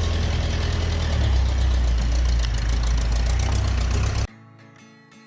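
Tractor engine running steadily with a deep rumble, its pitch dropping slightly about a second in. It cuts off abruptly near the end, and quiet acoustic guitar music follows.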